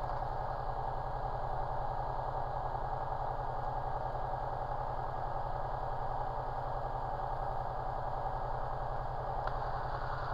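Single-engine light aircraft's piston engine idling steadily before the take-off roll, with an even low pulsing.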